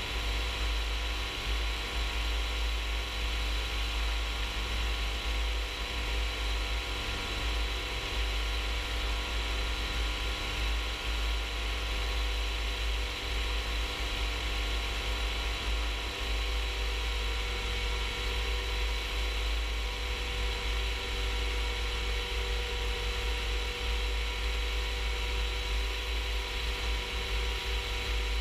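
Rans S-14 light aircraft's engine and propeller droning steadily in cruise flight, with wind rumbling on an outside-mounted microphone.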